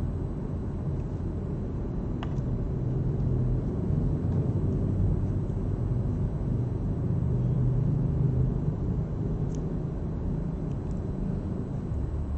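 Steady low rumble with a low hum, like a motor or engine running nearby, and a few faint small clicks from the cable wires being handled.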